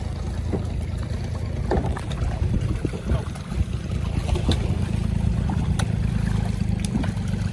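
A boat engine running with a steady low drone, with scattered short knocks and clicks on top.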